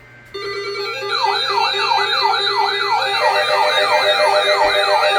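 An electronic siren alert tone starts about half a second in as steady, pulsing tones. From about a second in, fast repeating pitch sweeps join it, about three a second.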